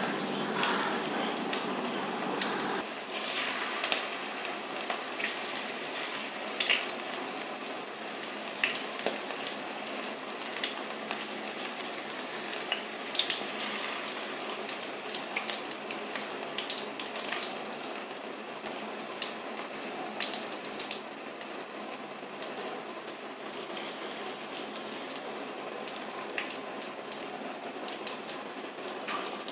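Batter-coated okra strips deep-frying in hot oil: a steady sizzle dotted with frequent sharp crackles and pops.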